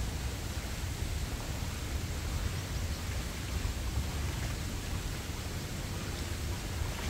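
Shallow stream water running steadily over a riffle, with a low wind rumble on the microphone.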